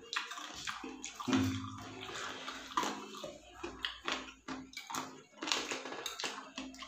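Close-up wet eating sounds from a bowl of saucy seblak with chicken feet: repeated lip-smacking, sucking and slurping with short clicks of chewing.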